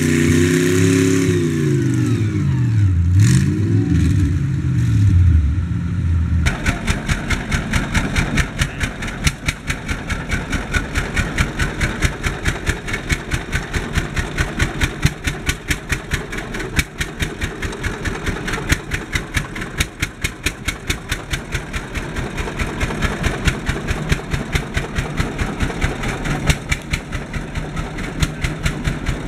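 A small red tractor's engine drops in pitch under load and picks back up. About six seconds in, the sound cuts to a vintage steel-wheeled tractor's engine running with an even beat of exhaust pulses.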